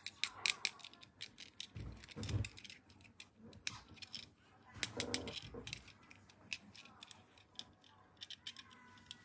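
Hands handling plastic toys and packaging: irregular small clicks and taps, a soft low thump about two seconds in, and a brief squeak of rubbing plastic about five seconds in.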